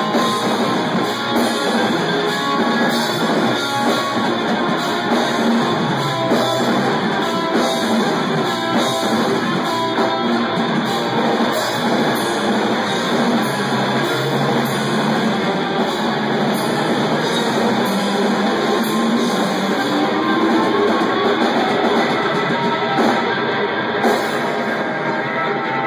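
Rock band playing live: electric guitars over a drum kit, full and steady throughout.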